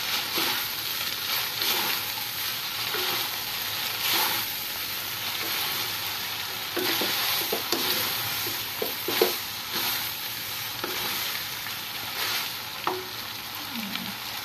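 Spaghetti sizzling in a hot wok while being tossed and stirred with a wooden spatula, with irregular scrapes and knocks of the utensils against the pan.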